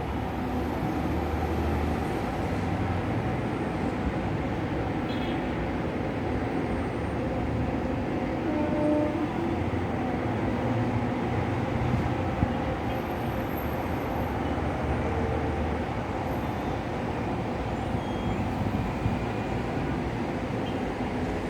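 Rush-hour city traffic heard from a high-rise: a steady, dense din of many engines and tyres blended together, with a few faint short tones rising out of it.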